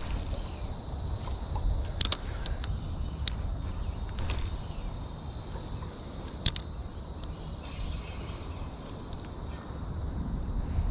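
Wind rumbling across the microphone while insects drone steadily in a high pitch, with a few sharp clicks about two, three and six seconds in.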